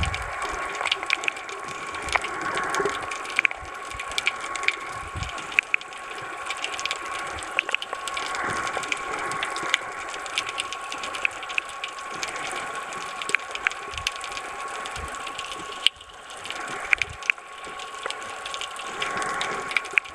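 Underwater ambience picked up by a camera held underwater while snorkelling: a steady wash of water noise with frequent sharp crackling clicks, a steady thin tone and a few low thumps.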